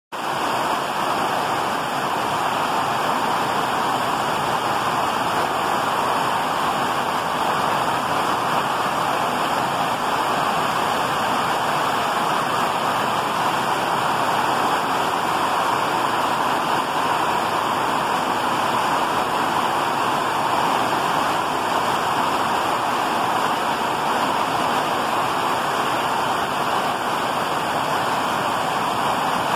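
Heavy rain pouring steadily, an even rushing hiss with no change throughout.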